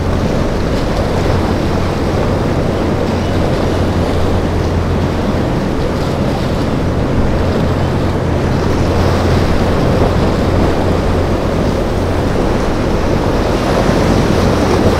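Rough surf breaking and crashing in a steady wash, with strong wind buffeting the microphone and a steady low hum underneath.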